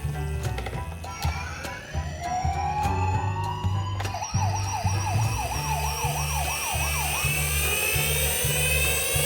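Emergency vehicle sirens: a slow rising wail early on gives way about four seconds in to a fast yelp sweeping up and down about three times a second, over background music with a steady beat.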